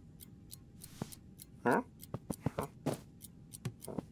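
Cartoon sound effects for a cat creeping over a bed: a run of small soft taps and rustles, with one short voice-like cat noise about one and a half seconds in.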